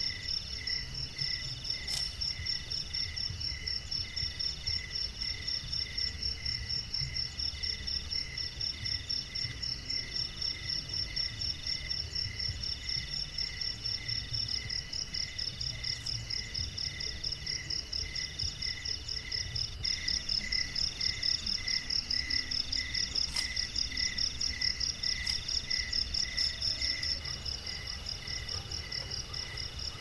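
Night chorus of crickets and other insects: several calls at once at different pitches, a high rapid trill, a lower chirp repeating about twice a second, and a call in between that comes in bursts of about a second.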